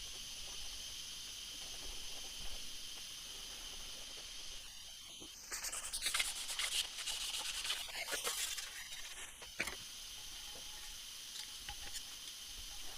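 Scraping or rubbing for about four seconds in the middle, over a faint steady high hiss, with a short sharp knock just after it stops.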